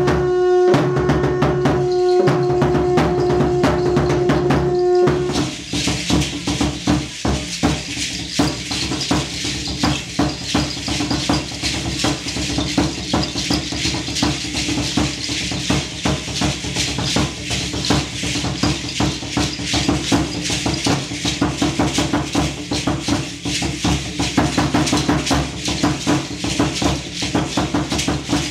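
Conch shell trumpet blown in one long steady note for about five seconds. Then rapid, continuous rattling and drumming in an even rhythm that accompanies Aztec dance.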